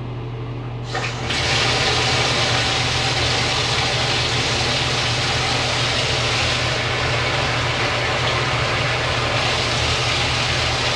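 Shower turned on about a second in, then water spraying steadily from the showerhead, over a low steady hum.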